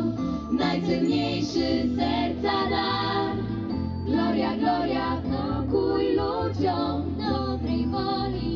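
Group of children and teenage singers performing a Christmas carol into microphones, amplified, with steady instrumental backing underneath the voices.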